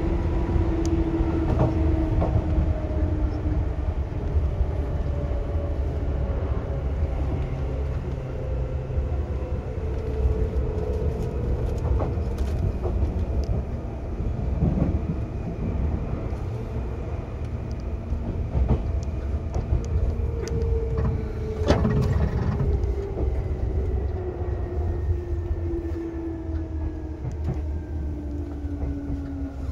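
Seibu 2000 series electric train car running: a steady low rumble of wheels on rail with scattered sharp clicks, heard from directly above the line breaker under the floor. Over it, a motor whine falls slowly in pitch early on, and again for the last ten seconds or so.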